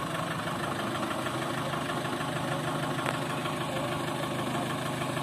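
Tractor's diesel engine running steadily at idle.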